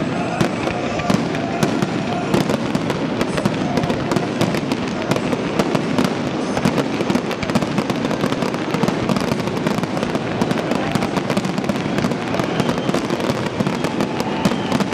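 Fireworks display going off without a break: dense crackling and popping of many shells and ground pieces bursting at once, at a steady loudness.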